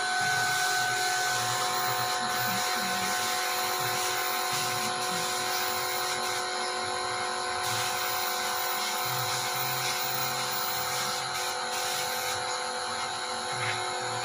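Air compressor running steadily: a constant mechanical drone with an even high hiss.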